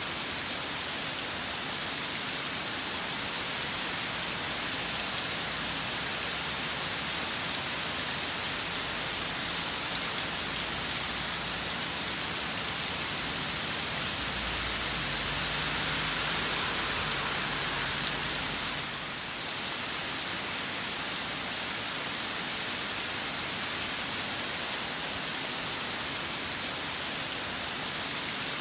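Rain falling steadily in a storm, a dense, even hiss. About halfway through, a low rumble swells underneath for a few seconds and then stops.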